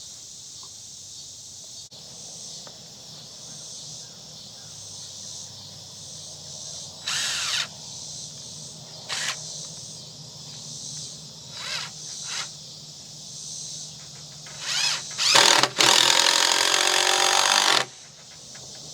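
Cordless impact driver sinking long construction screws into treated lumber: several short bursts, then one long run of about two seconds near the end.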